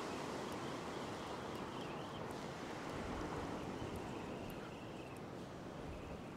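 Ocean surf breaking and washing up a sandy beach: a steady rush of noise.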